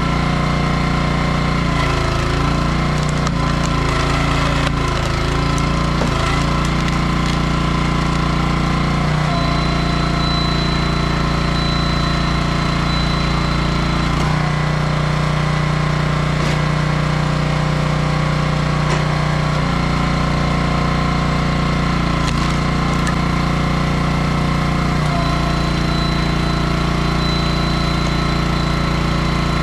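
Small gas engine of a 27-ton hydraulic log splitter running steadily. Its note shifts every five seconds or so as the engine loads up while the ram pushes through black walnut rounds.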